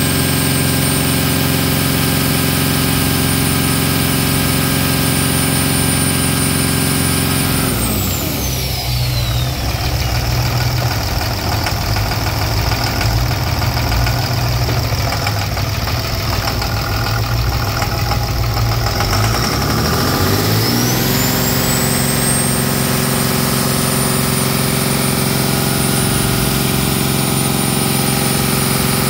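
2005 Cummins ISB 5.9 inline-six turbo-diesel running at raised revs with a high whine; about eight seconds in the revs fall to idle and the whine glides down with them, and near twenty-one seconds the revs come back up and hold, the whine rising again.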